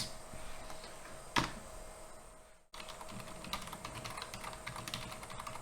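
Typing on a computer keyboard: scattered key clicks, one sharper keystroke about a second and a half in, then a steadier run of keystrokes. The sound cuts out briefly near the middle.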